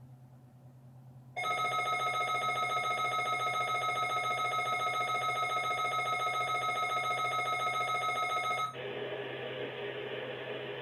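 Emergency Alert System attention signal: a steady, harsh electronic alert tone with a fast flutter starts about a second and a half in, holds for about seven seconds and cuts off abruptly. A steady hiss of static-like noise follows.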